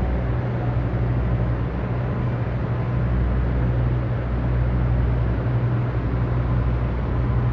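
Steady low hum with an even rushing noise over it, as from room ventilation fans running.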